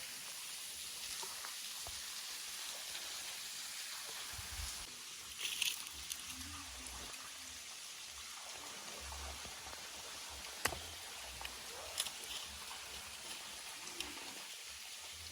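Waterfall splashing onto rock in a steady rush, its flow thinned by the dry season, with a few sharp clicks and some low rumbles.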